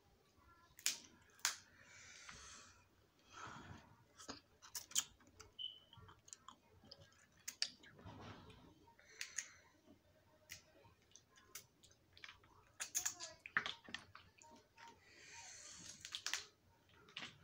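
Snow crab leg shells cracking and snapping by hand in many sharp clicks, with chewing of the crab meat between them.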